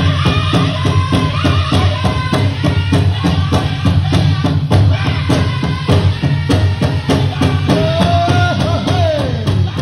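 Powwow drum group singing over a steady, even drumbeat on the big drum, with the metal cones of jingle dresses jingling along; a high sung line slides downward near the end.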